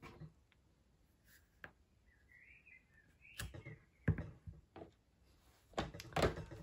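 Light clicks and knocks of a clear photopolymer stamp and an acrylic stamp block being handled and set down on a craft mat, with a sharper knock about four seconds in and several more near the end.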